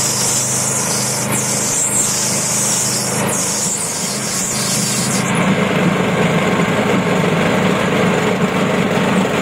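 Railway motor trolley's small engine running steadily as the trolley travels along the track, its wheels running on the rails. A higher hiss over it stops about five seconds in.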